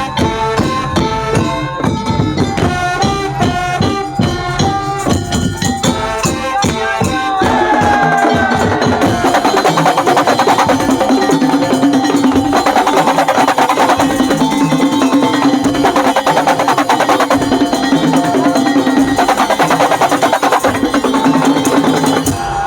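Madurese daul (tong-tong) percussion ensemble playing. A quick stepping melodic phrase over drums runs for about seven seconds, then gives way to a denser, faster section with a held low note under rapid percussion.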